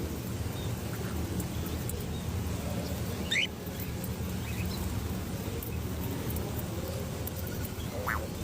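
Birds giving two short calls, a rising one about three seconds in and another near the end, over a steady low rumble.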